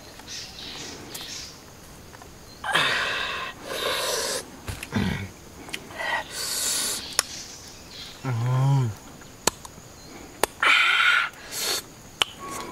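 Noisy eating of a roasted chicken: several short bursts of chewing, tearing and slurping, with a few sharp lip smacks, and one short low vocal sound a little past the middle.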